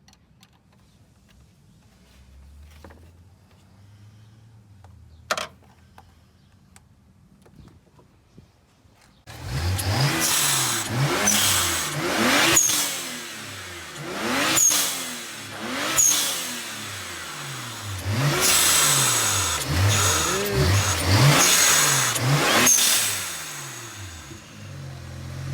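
BMW N54 twin-turbo 3.0-litre straight-six revved repeatedly while stationary, the engine note climbing and falling about eight times starting some nine seconds in, with short high chirps and hiss as the revs drop, from the newly fitted aftermarket blow-off valve venting. Before that only a faint low hum and one click.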